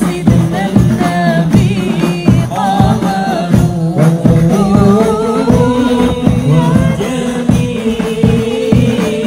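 Men singing a devotional selawat with a wavering, ornamented melody, accompanied by hand-beaten frame drums (rebana) keeping a steady rhythm.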